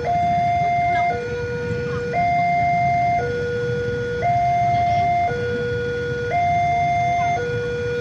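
Railway level-crossing warning alarm sounding, a higher and a lower tone alternating about once a second, which signals that a train is approaching and the barrier is down. It plays over a low background rumble.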